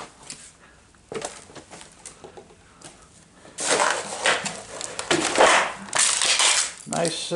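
Footsteps crunching over broken glass and debris on a hard floor: a few light clicks, then about halfway through a run of loud crackling crunches for some three seconds.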